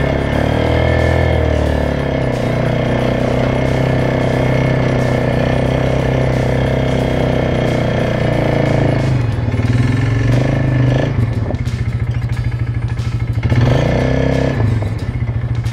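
ATV engine running as the quad is ridden slowly. Its note holds steady at first, drops about nine seconds in as it slows, then rises briefly near the end.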